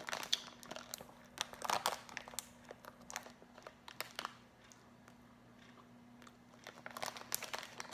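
Plastic snack wrapper crinkling in the hands around a croissant, with soft chewing. The rustles come and go, with a quieter stretch in the middle and more again near the end.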